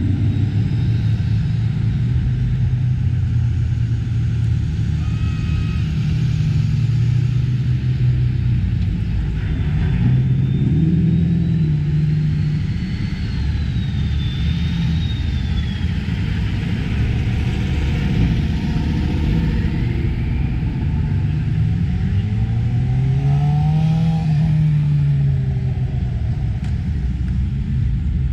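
Cars and a pickup truck driving past one after another, their engines rising and falling in pitch as each one accelerates by, with the strongest pass a little over three-quarters of the way in. A faint high whine glides up and down near the middle.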